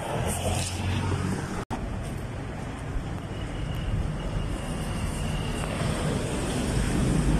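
Street traffic noise: a motor vehicle running close by, its low rumble building toward the end.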